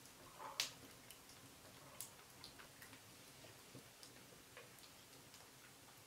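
Faint, irregular crackles and ticks of a small wood fire burning in an irori hearth, with a sharper click about half a second in and another about two seconds in.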